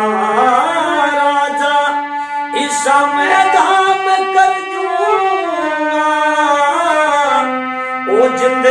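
A man singing a Haryanvi ragni in long, wavering held phrases, accompanied by a hand-pumped harmonium sounding steady sustained notes beneath the voice.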